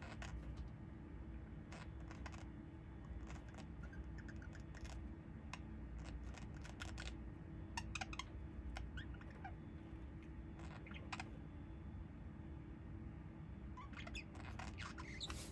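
Light scattered clicks and a few faint, short chirps from a small bird, over a low steady hum.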